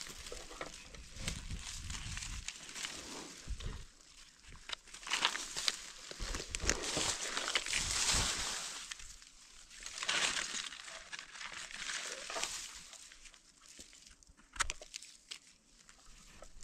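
Dry leaves and grass rustling and crunching in irregular bursts as gloved hands dig through the forest floor and pull up red Amanita mushrooms, with one sharp click near the end.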